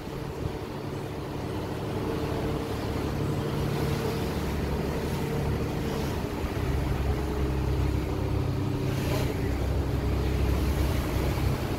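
A tour boat's engine running steadily under way, a low, even hum, with wind and water rushing past the hull.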